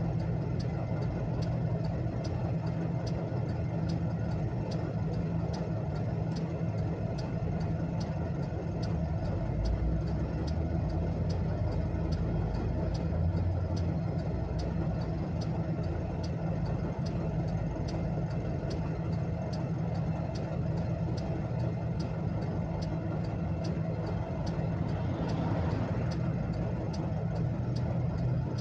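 Car hazard-warning flasher relay ticking at an even steady rate, heard inside the cabin over the engine idling.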